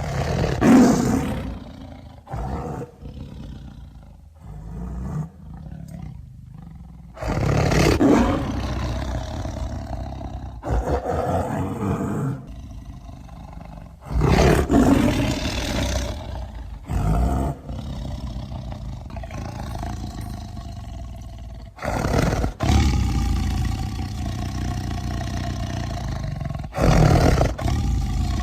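Custom werespider monster sound effects: a series of loud growling roars a few seconds apart, over a steady low rumble.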